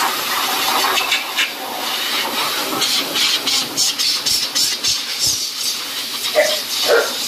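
Pet grooming blow dryer blowing air through its hose onto a wet puppy's fur: a steady rushing hiss that swells and dips as the nozzle moves.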